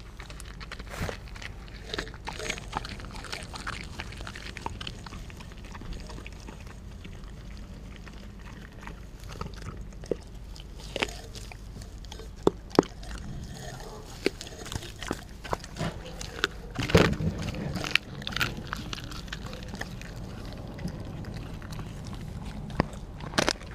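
Australian Kelpie chewing and tearing at a raw turkey back, wet mouth sounds broken by scattered sharp crunches of bone and cartilage, with a loud run of crunching about seventeen seconds in.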